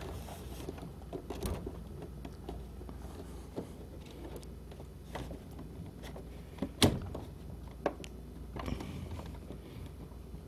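Plastic projector casing being pried at by hand: scattered small clicks and creaks of the shell, with one sharper click about seven seconds in.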